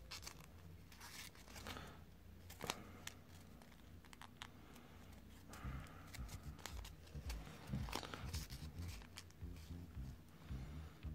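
Origami paper rustling and crinkling under the fingers as a folded paper turtle is shaped and creased: faint, scattered crackles and soft clicks.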